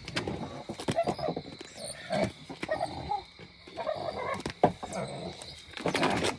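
Irregular low animal grunts and growls, with a few sharp knocks mixed in.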